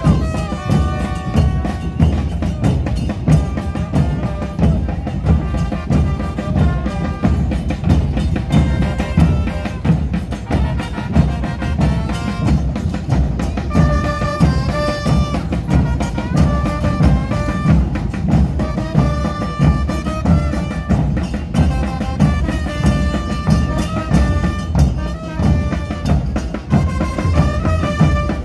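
A street brass band of trumpets and trombones plays a tune in short repeated phrases over steady bass-drum beats.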